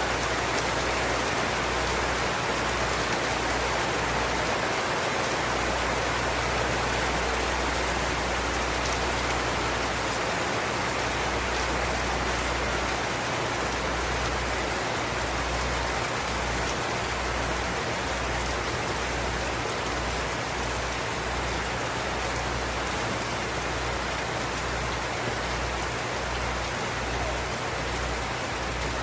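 Steady tropical rain falling, an even, unbroken hiss, with a low rumble underneath that keeps swelling and dropping.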